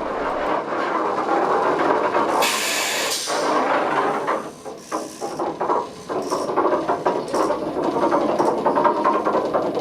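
Small cable-hauled funicular tramcar running on its track: a steady rattling clatter of wheels and running gear, with a brief hissing rush about two and a half seconds in.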